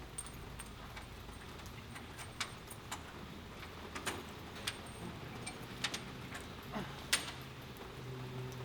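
Scattered sharp clicks and taps, irregularly spaced, over a steady hiss; low sustained music comes in near the end.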